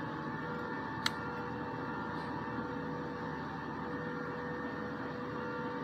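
Steady mechanical hum with faint steady tones, and a single sharp click about a second in.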